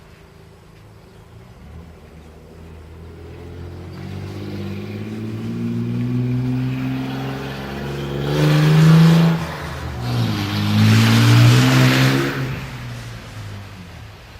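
Engine-driven vehicles passing close by, two in quick succession. Each engine hum swells, peaks with a rush of noise and drops in pitch as it goes past.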